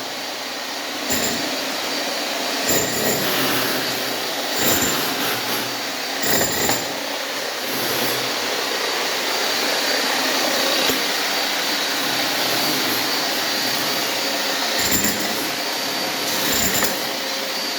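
A power tool running continuously with a steady grinding hiss and a thin whine, with several short louder surges.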